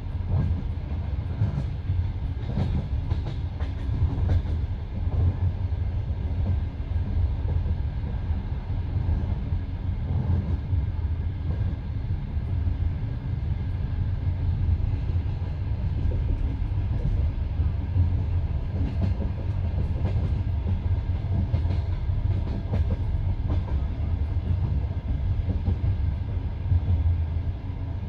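Passenger coach of a moving train, heard from inside: wheels rolling on the rails with a steady low rumble and scattered light clicks.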